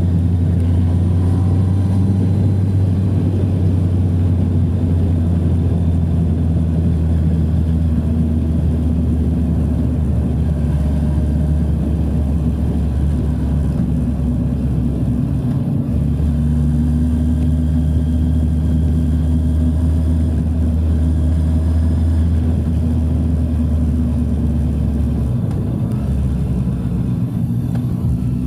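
Motorcycle engine running steadily at low road speed, heard from on board the moving bike. The engine note dips briefly about halfway through and again near the end.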